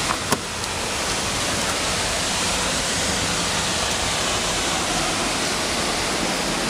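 Steady rushing roar of Mooney Falls, a waterfall pouring into its plunge pool, with two light knocks just at the start.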